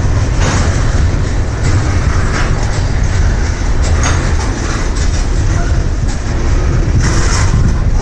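CSX mixed freight train's tank cars and covered hoppers rolling past at close range: a loud, steady rumble of steel wheels on rail, broken by sharp clacks as wheels cross rail joints.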